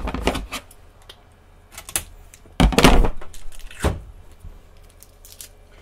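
Hands knocking and clicking against a 3D printer's frame and base while handling parts inside it: a few sharp clicks, with a louder, longer knock and scrape about two and a half seconds in.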